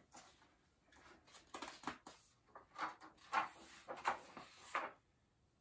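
Paper pages of a hardcover picture book rustling and flapping as a page is turned, a few short soft rustles in a row.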